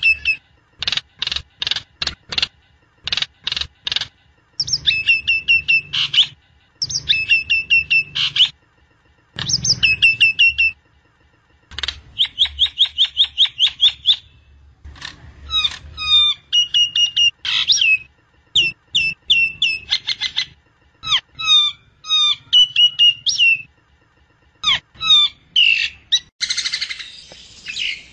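Jalak nias myna singing: phrases of rapid clicking notes and sharp whistles, each lasting one to two seconds with short gaps between them, with a harsher, rasping passage near the end.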